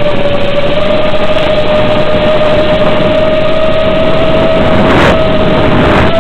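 Electric motor of an FPV aircraft whining steadily at one pitch, heard through the onboard camera's microphone over the analog video link with heavy hiss. A brief rush of noise comes about five seconds in.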